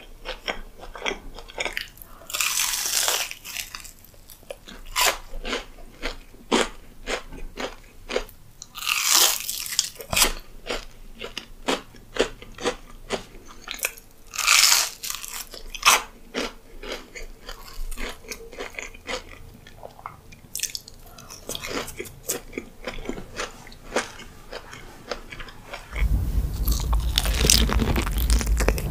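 Close-miked eating: crisp bites into fried, breaded food, each with a sharp crunch, followed by chewing and wet mouth sounds. A few bites stand out louder. Near the end a louder, denser run of chewing begins.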